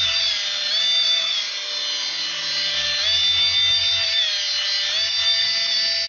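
Micro electric motors and twin stacked rotors of a toy Minion flying helicopter whining steadily in hover, the pitch dipping and recovering several times as the motor speed changes to hold its height.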